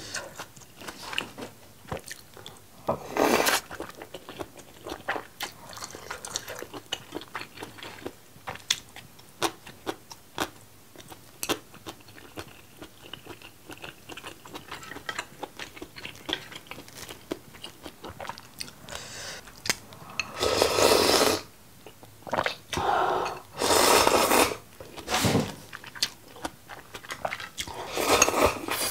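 Close-miked mouth sounds of a person eating spicy seafood jjambbong ramen: steady wet chewing with small clicks, and louder slurps of noodles and broth about three seconds in and several times in the last ten seconds.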